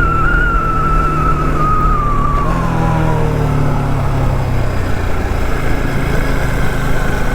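Motorcycle engine running under way, with wind rushing over the microphone. A whine falls in pitch over the first three seconds as the bike eases off, then the engine runs steadily.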